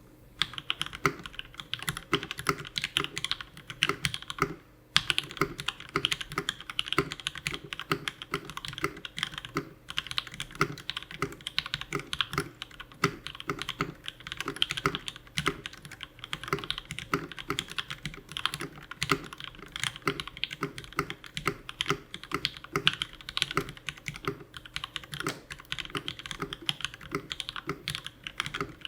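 Steady fast typing on a Space65 mechanical keyboard with H1 switches by HHHH: many quick key clacks a second, with a brief pause about five seconds in. The switches are lubed with Tribosys 3204 and have 68 g Sprit progressive springs, and the board has no PCB or case foam.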